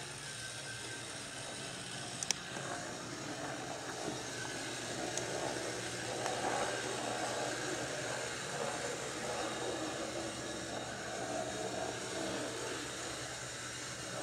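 Samhongsa HO-scale brass model of a Canadian Pacific 4-4-4 Jubilee steam locomotive running on track: a steady hum of its motor and gearing with the wheels rolling on the rails, running smoothly. A single sharp click comes about two seconds in.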